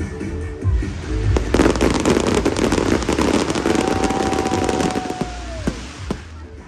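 Aerial fireworks going off: sharp bangs and a dense crackling of crackle shells, with a held whistle-like tone in the middle that slides down in pitch as the crackling fades.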